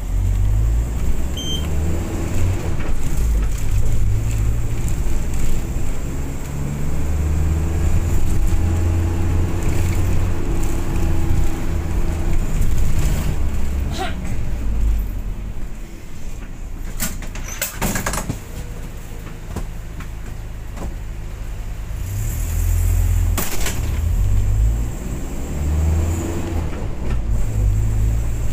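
Moving road vehicle heard from inside the cabin: a steady low engine and road rumble, with a faint whine that rises and falls partway through and a few brief knocks or rattles.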